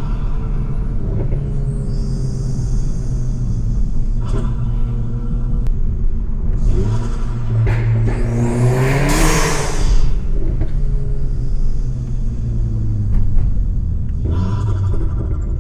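Stage 3 tuned, decat Volkswagen Golf GTI's turbocharged 2.0-litre four-cylinder engine and exhaust under way, the engine note climbing as it pulls hard from about six and a half seconds in. A loud rushing burst comes around nine to ten seconds in, then the note falls as it eases off, and rises again briefly near the end.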